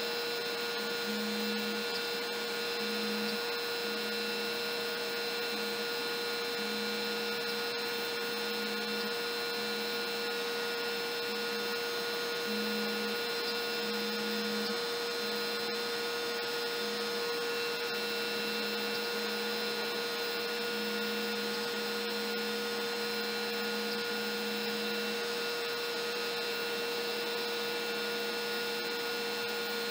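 A compact router spinning on a LowRider CNC while it cuts MDF: a steady mechanical hum with a high whine. A lower tone switches on and off irregularly, every second or so, as the machine moves.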